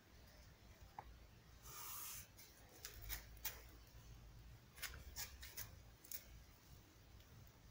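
Near silence over a low hum, with a brief rustle about two seconds in and a scatter of faint sharp clicks after it.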